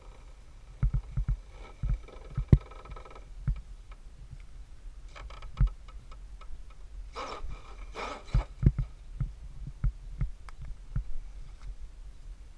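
Radio-controlled scale crawler truck climbing a steep board ramp: irregular knocks and thumps of its tyres and chassis on the board, over a faint electric motor whine, with a louder rough scrabbling stretch about seven to eight seconds in.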